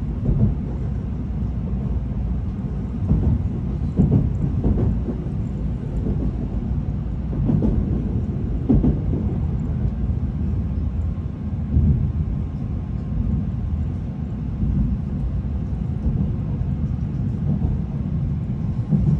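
Shinkansen Hikari train heard from inside the passenger cabin: a steady low rumble of the train running on the rails, with several brief louder knocks from the wheels and track.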